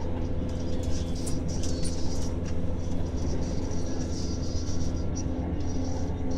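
Steady low rumble of a moving train heard from inside the carriage, with a constant hum over it and a faint hiss.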